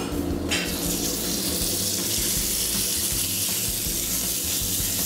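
Cubes of venison sizzling in oil on a hot flat-top griddle: a steady hiss that starts about half a second in as the meat goes down, then holds even.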